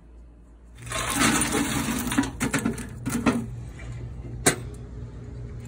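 A loud rough rustle of handling noise for about two and a half seconds over a steady low hum, then a single sharp metal clank as the smoker's lid is worked by its spring-coiled handle.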